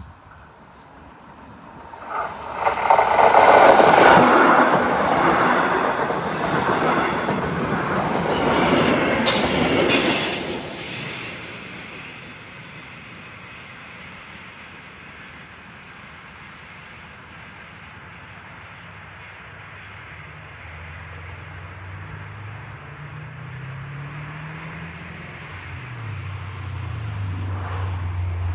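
Electric passenger train passing close by: it swells to its loudest a few seconds in, with rattling over the rails and some wheel squeal, then dies away slowly over the following twenty seconds. A low drone rises near the end.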